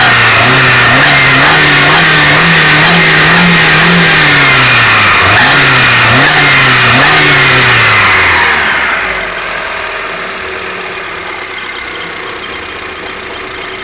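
Kia Sephia 1.5 16-valve DOHC four-cylinder engine being revved in repeated blips with the alternator's wiring connector unplugged, then settling to a quieter idle about nine seconds in.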